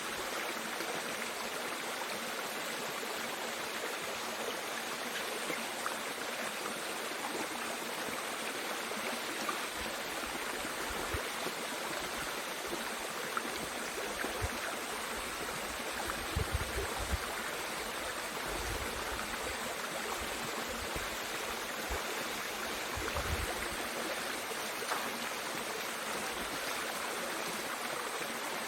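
Mountain stream rushing steadily over rocks, with a few short low rumbles partway through.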